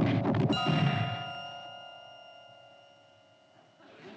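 Magic-spell sound effect: a loud noisy burst, then a bell-like metallic chime struck about half a second in that rings and slowly fades away.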